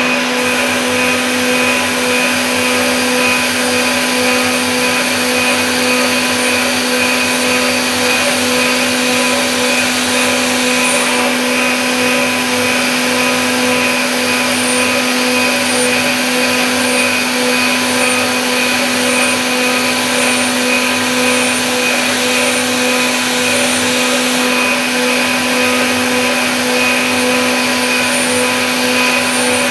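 CNC milling machine spindle running with a steady high whine while a thread mill cuts a thread into a metal workpiece, with a faint regular pulse under a second apart through the middle.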